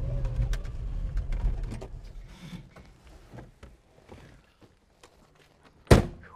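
A 1982 Toyota Hilux pickup's engine runs with a low rumble that fades out after about two seconds. A few light clicks and knocks follow, then the driver's door slams shut with one loud bang near the end.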